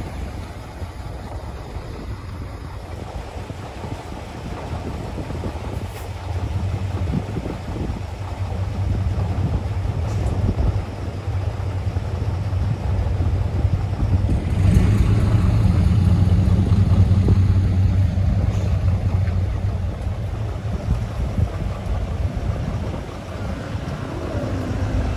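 Heavy diesel trucks running and driving past, a deep engine rumble that grows louder about halfway through and eases off near the end.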